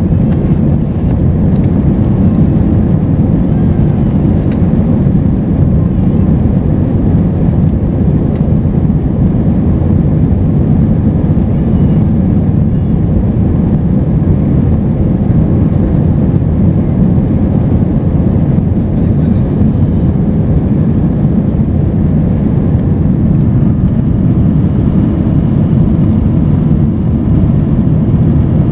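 Steady, loud low roar of an airliner's jet engines and rushing air, heard inside the passenger cabin in flight.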